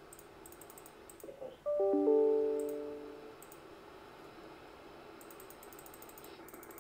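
Static hiss from a software-defined radio receiving the HF band in AM, with mouse clicks. About two seconds in, a chime of several piano-like notes starts in quick succession and fades over about a second and a half. Near the end the hiss turns duller as the receiver is switched to USB with a narrower filter.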